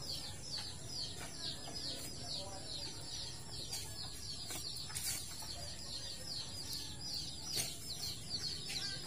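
Birds chirping steadily, a rapid run of short, high, falling notes repeated several times a second, with a few sharp clicks.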